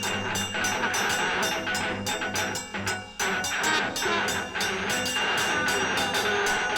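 Instrumental music: dense, layered sustained tones over rapid, closely spaced percussive strikes. It thins out briefly about three seconds in, then carries on.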